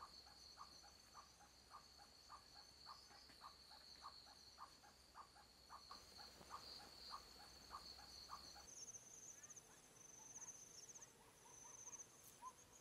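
Faint chorus of insects: a steady high trill, with a short lower call repeating about two to three times a second. A little past two thirds of the way in, it switches to a different, pulsing high insect trill.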